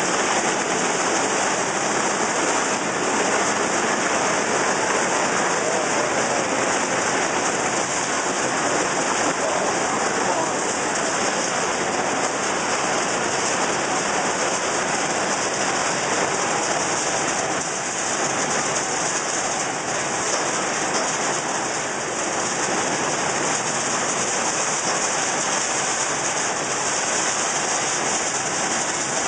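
Puffed corn snack extrusion line running: a loud, steady, even machine noise with no breaks or rhythm.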